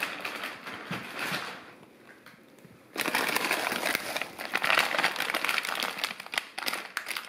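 Plastic bag of mandarins crinkling and rustling as it is grabbed and pulled out of a foam-lined box, with a quieter lull of about a second before the loudest crinkling starts.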